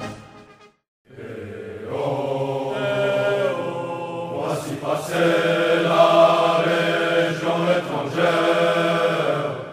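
Slow background music of long held, chant-like notes over a steady low drone. It begins about a second in after a brief gap and fades out at the end.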